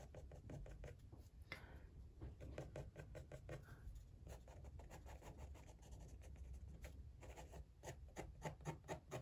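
Fine-tip ink pen scratching faintly on watercolor paper in quick, short scribbling strokes, with the strokes coming thicker near the end.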